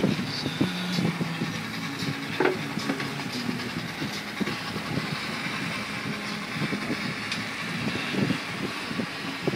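Boat motor running steadily under way, with water rushing along the hull.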